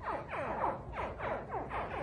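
A group of baby crocodiles chirping together: many quick falling calls that overlap, several a second, which sound like laser-gun shots.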